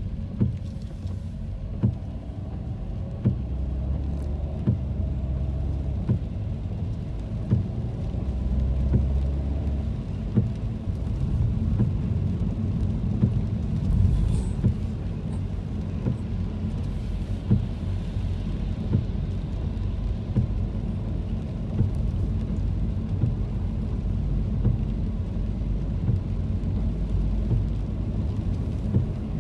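Steady low rumble of a car's engine and tyres heard from inside the cabin on a wet road, with short knocks every second or two.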